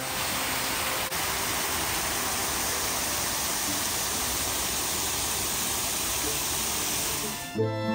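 Small waterfall spilling over a rock ledge into a pool: a steady rush of falling water, cut off abruptly near the end.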